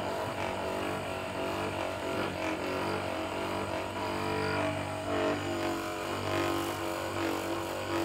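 Handheld percussion massage gun running steadily, its motor humming as the head pounds on the muscles of the upper back and shoulder blade.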